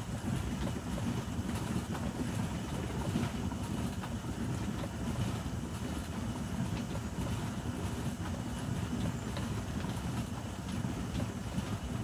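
Homemade plastic-barrel trommel sieve turning on its rollers while sifting leaf mould: a steady low rumble with a few faint clicks.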